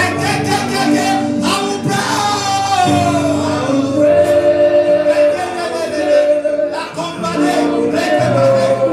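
Gospel worship music with singing over held instrument chords.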